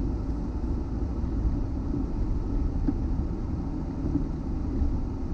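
Steady low road rumble of a moving car heard from inside the cabin: tyre and engine noise.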